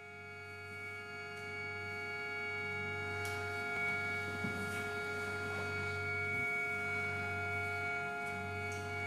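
Accordion holding a sustained chord over a low drone, swelling in from quiet over the first few seconds and then held steady. A few faint knocks sound around the middle.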